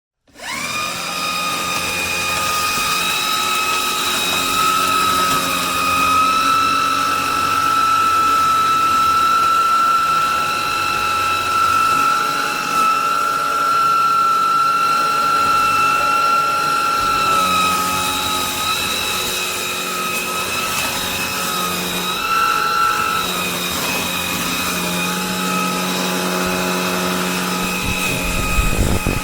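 Vax HomePro Plus cordless stick vacuum cleaner running, a steady high-pitched motor whine that starts right at the beginning. Its pitch wavers slightly a couple of times in the second half.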